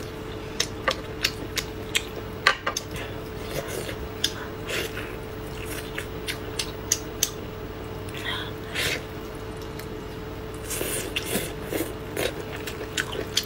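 Close-miked eating of boiled beef rib meat: many short wet clicks and smacks of biting, tearing and chewing, over a faint steady hum.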